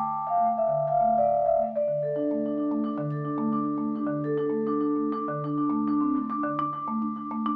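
Vibraphone and marimba played together with yarn mallets: a melody of ringing notes steps downward over a steady, repeating two-note figure low down, with quicker strikes filling in from about halfway.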